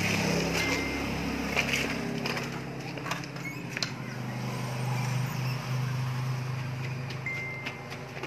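A child's plastic tricycle rolling and rattling over rough concrete, with scattered sharp clicks and a steady low hum underneath.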